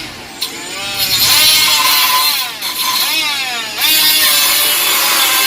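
Milwaukee M12 cordless angle die grinder running at its highest speed setting while cutting. Its whine repeatedly drops in pitch and climbs back as the blade bites into the work and frees up again.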